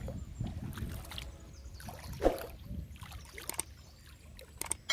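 Water sloshing and splashing, with scattered light knocks and a sharper knock about two seconds in.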